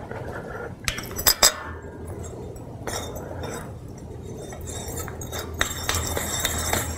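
A brass finial being screwed onto an iron bedpost. There are a few sharp metal clinks about a second in, then small scraping and clinking of metal on metal as it is turned down.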